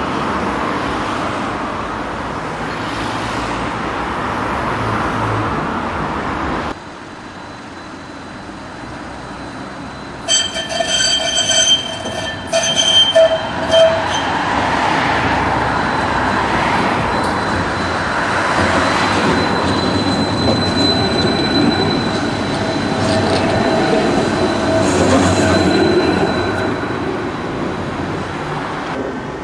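Stadler Variobahn low-floor trams running on street track, heard in separate shots. About ten seconds in, the wheels squeal in a string of high-pitched screeches for a few seconds as a tram rounds the junction curve, and a fainter steady squeal comes back later.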